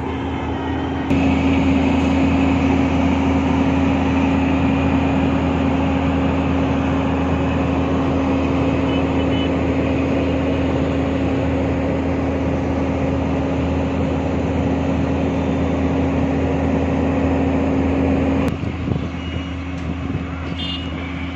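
Heavy vehicle engine running steadily with a low hum. It gets louder about a second in and drops off suddenly near the end.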